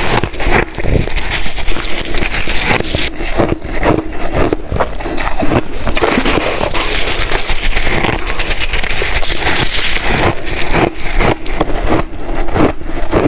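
Crunchy ice being chewed close to the microphone: dense, continuous crackling crunches with many sharp cracks.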